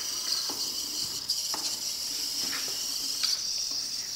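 Small wheeled robot's electric drive motors whining steadily at a high pitch as it drives through the maze, with a few faint clicks about a second apart.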